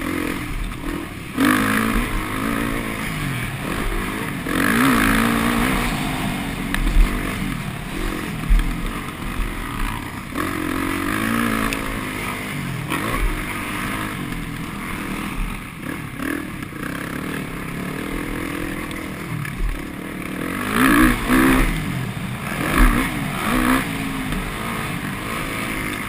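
Motocross bike engine heard on board, revving up and falling back over and over as the rider accelerates, shifts and backs off around the track, with several louder surges.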